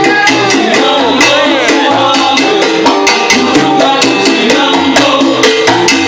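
Live salsa orchestra playing, with a quick, steady beat of shakers and drums under the melody.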